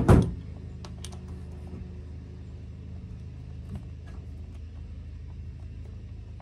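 A neighbour's lawn mower running steadily in the background as a low drone, with faint small clicks of an RC car's wheel and parts being handled. There is a single loud knock at the very start.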